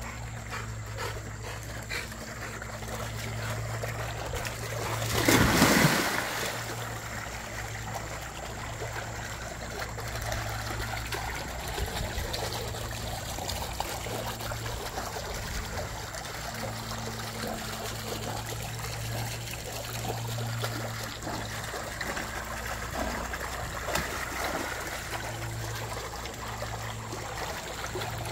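A dog splashing into a swimming pool and swimming after a thrown toy: one loud splash about five seconds in, then steady trickling and lapping water over a low steady hum.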